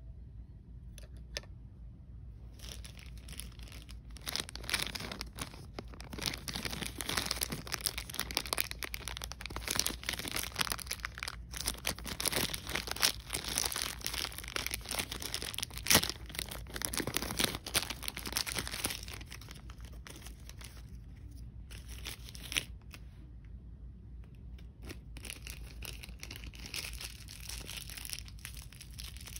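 A plastic wrapper crinkled and torn by hand, dense and crackly through most of the first two-thirds, with one sharp click about halfway through. Lighter crinkling comes back near the end.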